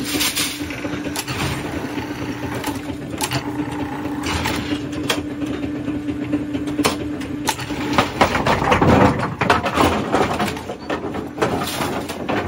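Vintage AMF 82-30 bowling pinsetter running through its set cycle: a steady machine hum under repeated clicks and clunks of the setting deck mechanism, with a louder clatter about eight to nine seconds in.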